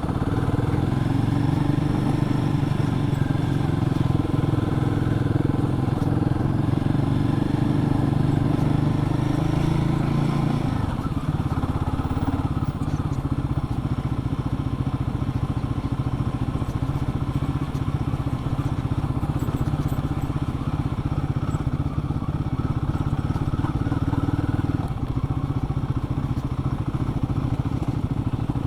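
Royal Enfield Guerrilla 450's single-cylinder engine running steadily on the move; its note drops lower about eleven seconds in.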